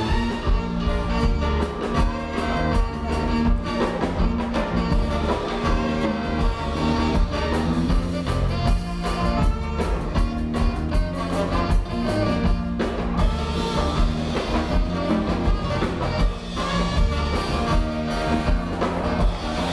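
Music with a steady beat, drums and bass, accompanying a circus act.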